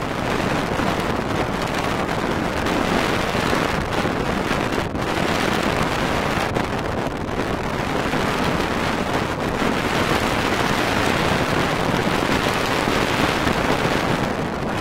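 Steady rushing noise of wind buffeting the camera microphone.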